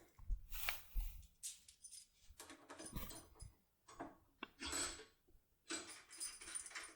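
Faint, scattered small clicks, scrapes and rustles of a BASI BM lock cylinder and a lockpick tool being handled.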